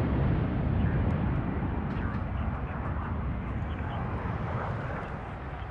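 Jet engines of a twin-engine business jet at takeoff power on its takeoff roll and liftoff: a dense, steady rushing noise that fades gradually as the jet moves away.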